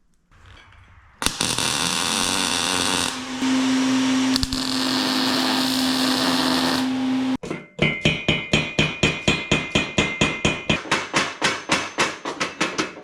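Metalworking on steel rods: a steady harsh buzzing with a low hum for about six seconds, then rapid, even hammer blows on steel, about four a second, ringing slightly.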